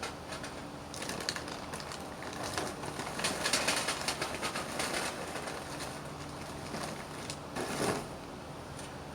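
A charcoal fire crackling and flaring as freshly added, fluid-soaked briquettes catch, with irregular crackles and hisses that swell in the middle and ease off near the end.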